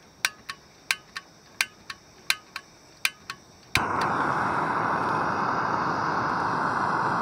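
Piezo igniter of an Alpkit Brukit canister gas stove clicking in five quick pairs, each press and release, as it is worked to light the burner. Near the end of the clicking the butane-propane burner catches with a sudden onset and then burns with a loud, steady rushing noise.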